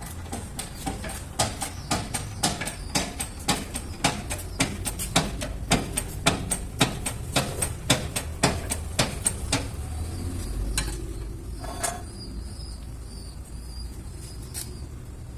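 A quick series of sharp knocks, about three a second and loudest in the middle, stopping about nine and a half seconds in, then a few single knocks: a hammer striking metal during wheel bearing repair work.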